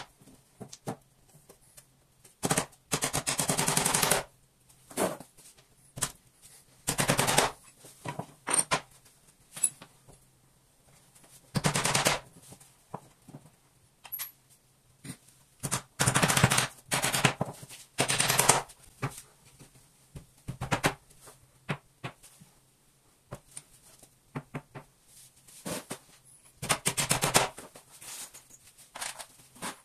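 A power tool working in repeated short bursts of rapid knocking, some bursts about a second long, with pauses between.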